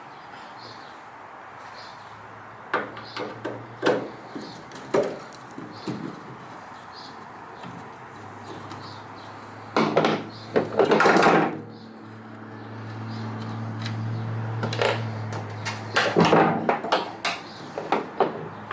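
Clicks, knocks and rattles of hands working on a pickup's tail light housing and its screws, in several clusters, with the loudest rattling about ten seconds in. A low steady hum runs for about three seconds after that.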